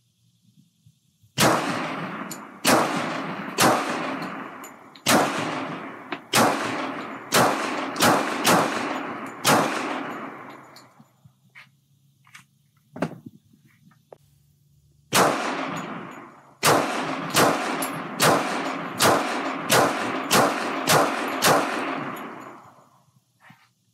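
Hi-Point .45 ACP blowback pistol fired in two strings of about nine and ten shots, each shot trailing off in echo. There is a pause between the strings with a single metallic clack.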